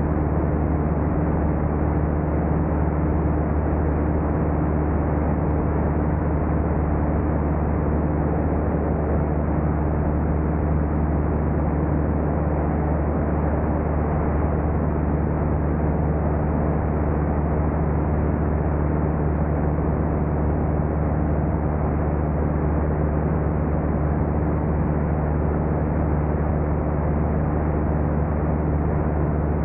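Small airplane's engine and propeller droning steadily in level cruise, a constant low hum with a wash of rushing noise and no change in pitch or level.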